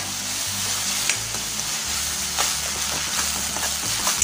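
Ground green chilli, garlic and ginger paste sizzling as it is sautéed in hot oil in a stainless steel kadhai. A steel spatula stirs it, scraping and now and then clicking against the pan.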